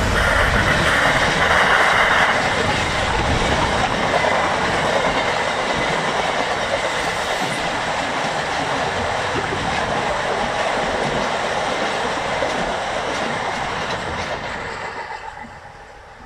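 Class 66 diesel-electric freight locomotive passing close, its two-stroke V12 engine loudest in the first couple of seconds, followed by a long train of box wagons rolling by on the rails with a steady rumble that fades away near the end as the train recedes.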